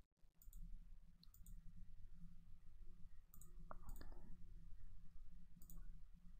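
Faint computer mouse clicks, about five, spaced irregularly a second or two apart, over a low steady hum.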